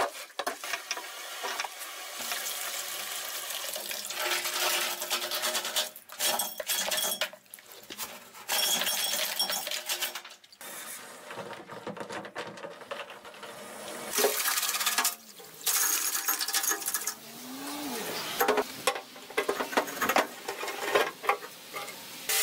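Rust flakes and grit rattling and scraping inside an old steel fuel tank from a 1968 Mercedes-Benz W114 as it is shaken and emptied, in irregular spells with short pauses. The tank is badly rusted inside and clogged with what feels like gravel, mud and rust flakes.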